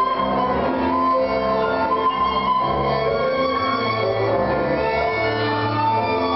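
Tango music with a prominent violin line over a bass line, playing at a steady level for the dancers.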